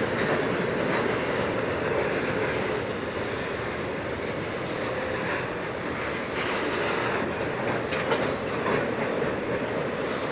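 Freight cars (covered hoppers and boxcars) rolling past: a steady rumble of steel wheels on rail with scattered clicks and clacks as the wheels cross the rail joints, more frequent in the second half.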